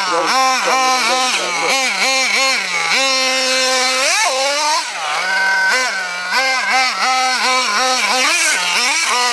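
Hobao Hyper ST truggy's small nitro engine revving up and down in quick repeated swoops as the throttle is worked while it is driven, with one longer climb about four seconds in. The uploader says the engine ran lean on this run because of a fuel pressure problem.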